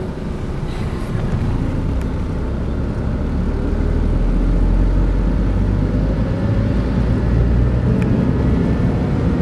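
Engine and road noise heard from inside a moving car's cabin, a steady low rumble that grows a little louder about halfway through.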